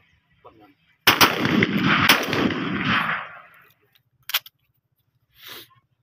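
Shotgun fired twice at flying pigeons, two loud reports about a second apart with the sound hanging on for a couple of seconds after them, then a shorter, sharper crack about four seconds in.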